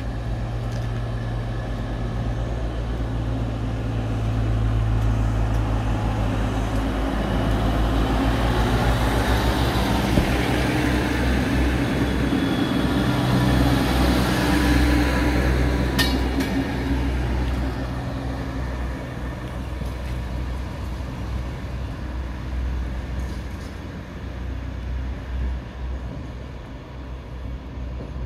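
Croatian Railways diesel multiple unit pulling out of the station. Its engine note changes about seven seconds in as it gets under way. It grows loudest as it passes close by, with a sharp click about halfway through, then fades as it draws away.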